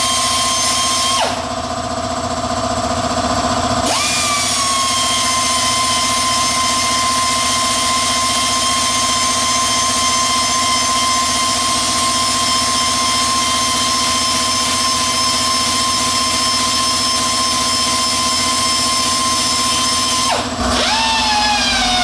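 Small handheld power sander grinding on the scuffed rim of an alloy wheel, its motor whining at a steady high pitch. The tool slows and its whine drops out about a second in, then it spins back up with a rising whine about four seconds in. It dips and spins up again near the end.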